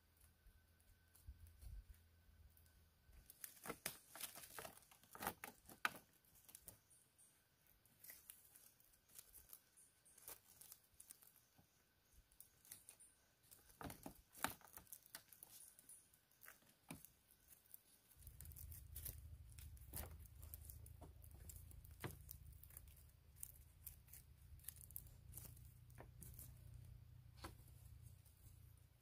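Scattered sharp clicks, taps and short rustles as split-bamboo floor slats are handled and a flat black strap is pulled tight and tied around them. A steady low rumble comes in about two-thirds of the way through.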